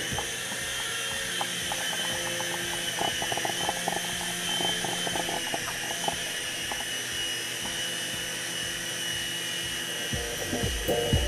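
Toy coaxial helicopter's small electric motors and twin rotors running in flight: a steady high whine whose pitch wavers slightly as the helicopter lifts off and hovers.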